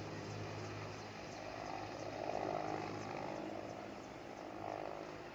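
Helicopter's rotor and turbine engine running at a distance after takeoff: a faint, steady drone with a low hum, swelling briefly about halfway through.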